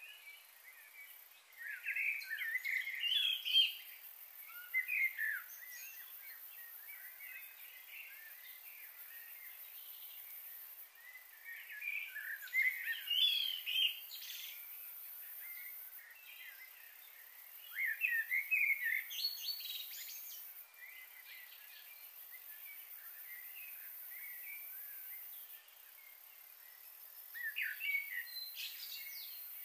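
A songbird singing in four short bouts of quick, chirping phrases, each lasting two to three seconds with pauses of several seconds between them, over a steady faint high hiss.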